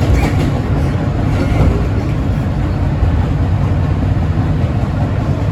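R160B subway train running along the track between stations: a loud, steady low running noise of wheels on rail.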